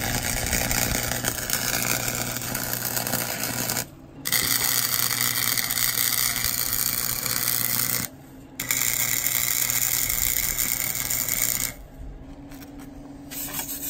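MIG welder arc welding 1-inch square steel tube, running in three stretches of about four seconds each with short pauses between, with a steady low hum under the arc. The arc stops shortly before the end.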